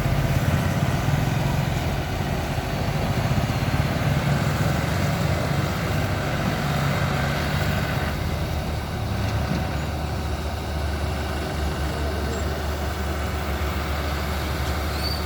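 Heavy diesel engine running steadily, its note dropping somewhat about eight seconds in.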